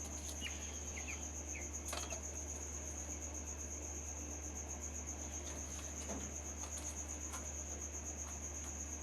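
A cricket trilling steadily in a high, fast-pulsing tone, over a low steady hum, with a few faint chick peeps in the first two seconds.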